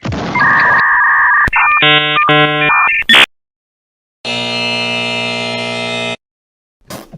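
Electronic cartoon sound effects: a run of electronic tones and stepped beeps ending in a sharp click, then after a brief silence a steady buzzer tone lasting about two seconds.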